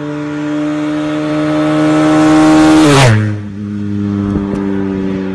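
Motorcycle engine passing by at speed: it grows louder, then about three seconds in its pitch falls sharply as it goes past, and it carries on at a lower steady pitch.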